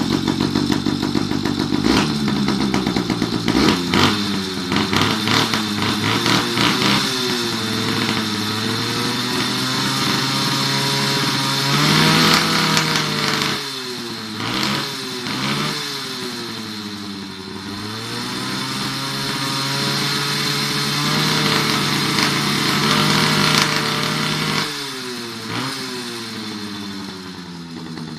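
Motorized bicycle's small engine running and being revved, its pitch rising and falling several times, then settling lower near the end.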